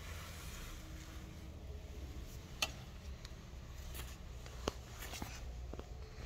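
Quiet indoor room tone with a steady low rumble and a few sharp clicks, the clearest about two and a half seconds in and again near five seconds.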